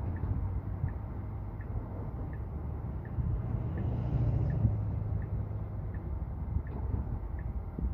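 Road and tyre noise heard inside a Tesla's cabin while it drives, with a light regular tick about every 0.7 seconds like a turn-signal indicator. The noise swells briefly about halfway through.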